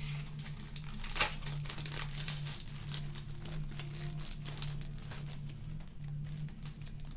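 Rummaging through craft supplies: plastic packaging rustling and crinkling, with scattered light clicks and a sharper rustle about a second in, over a low hum that comes and goes.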